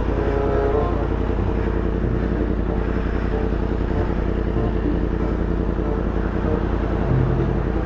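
Yamaha MT-10's crossplane inline-four engine idling steadily while the motorcycle stands still.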